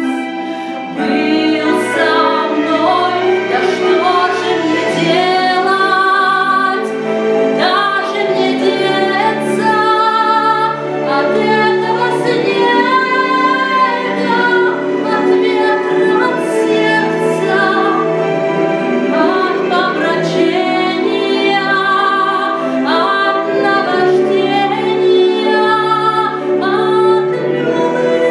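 Female vocal ensemble singing a slow song in several parts, with long held notes and vibrato.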